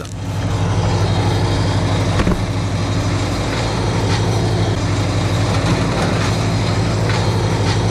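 A heavy engine running steadily at constant speed, with one short knock about two seconds in.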